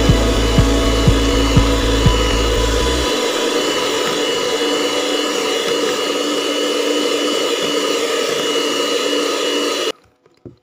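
Electric hand mixer running steadily, its beaters whirring through a thick margarine-and-sugar cake batter as eggs are beaten in. A regular low thud sounds about twice a second for the first three seconds, and the mixer cuts off abruptly near the end.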